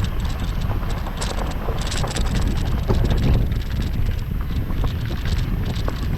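Honda Civic driving, heard from inside the cabin: a steady low road and engine rumble with wind buffeting the microphone and many short ticks and rattles.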